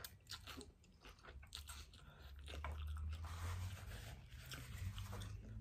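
Close-up eating sounds of thin rice noodles from a bowl of meatball noodle soup being slurped up and chewed, with many small wet mouth clicks. A low hum comes in about halfway through.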